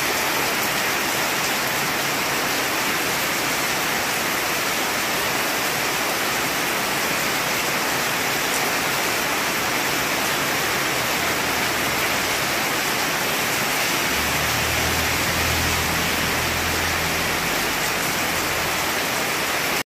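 Heavy rain pouring down steadily on a road. Near the end a passing vehicle's low engine hum joins it for a few seconds.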